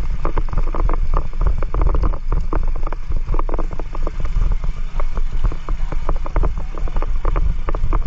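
Small motorcycle running along a rough gravel road, with heavy wind buffeting on the microphone and rapid, irregular clicks and rattles.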